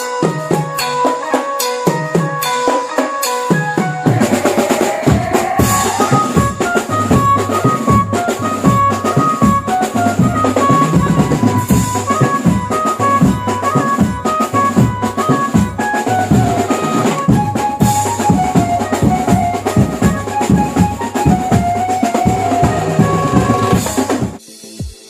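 Mumbai banjo-party band music: a bright melody line over a fast, steady beat of drums. The drums get fuller about three and a half seconds in, and the music breaks off briefly near the end.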